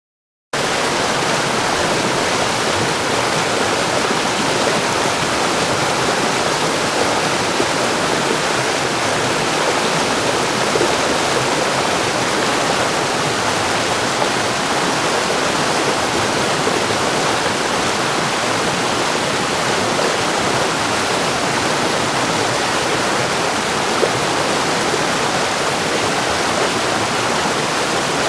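River rapids: fast water rushing and churning in a steady, full roar with no let-up. It starts abruptly about half a second in.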